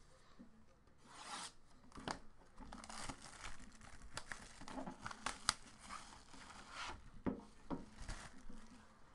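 Plastic shrink wrap being torn and peeled off a sealed box of trading cards, crinkling with a run of sharp snaps that starts about a second in.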